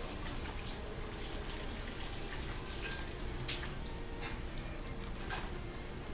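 A spoon scraping and clinking against a large ceramic donburi bowl as food is scooped up, with wet eating sounds. There is a sharper clink about three and a half seconds in.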